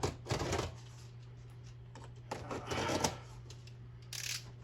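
Cardboard shipping box being handled and opened: three short bursts of rustling and scraping, the last one brief and bright near the end.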